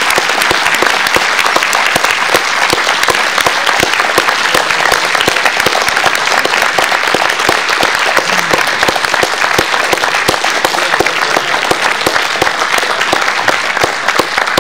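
Audience applauding: many people clapping together, sustained and loud.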